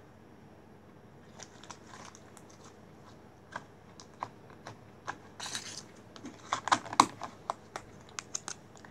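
Homemade slime being squeezed and pressed into a small plastic tub by hand, giving scattered small clicks and crackles. They come thicker and louder from about five seconds in, with the loudest near seven seconds.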